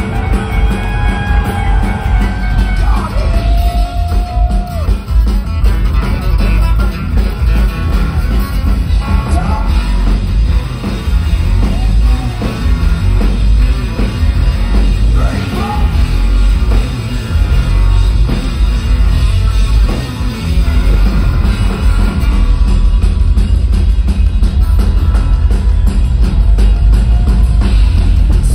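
A live rock band with banjo, acoustic and electric guitars and drums playing loud through a festival PA, heard from the crowd. Long held, bending notes stand out over the band in the first few seconds.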